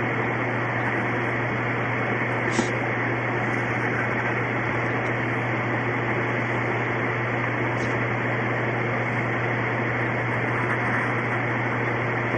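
Steady hiss with a low hum underneath and no distinct events.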